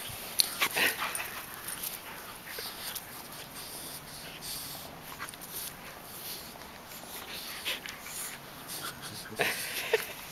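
A Belgian Tervuren and a boxer puppy play-fighting: scuffling and brief dog vocal sounds. The loudest moments come just after the start and about a second before the end.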